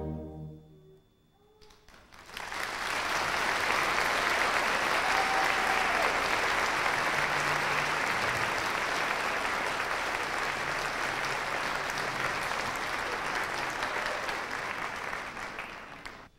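A concert band's held final chord dies away in the first second, and after a brief hush the audience breaks into steady applause that tapers off near the end.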